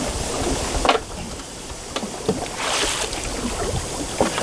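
A hooked fish thrashing and splashing at the surface beside the yacht's stern, with one louder splash about three seconds in, over wind rumbling on the microphone and a few knocks.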